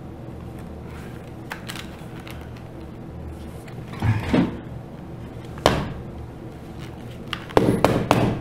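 The plastic case of a TI-83 Plus graphing calculator being squeezed and pried apart by hand, its stuck back cover giving scrapes and sharp clicks, with a quick run of knocks near the end.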